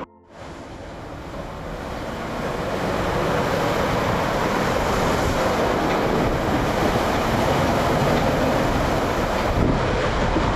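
Strong wind buffeting the microphone over the rush of breaking waves and foaming wake as a sailing catamaran runs fast through rough, lively seas. The sound rises in over the first few seconds and then holds steady.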